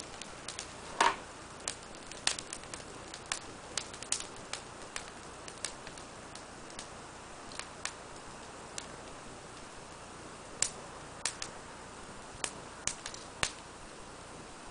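Fire crackling in a small stove, with irregular sharp pops, two or three a second, over a faint steady hiss. The loudest pop comes about a second in.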